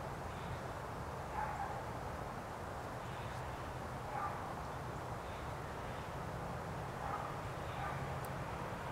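A dog barking faintly about three times, a few seconds apart, over a steady low outdoor hum.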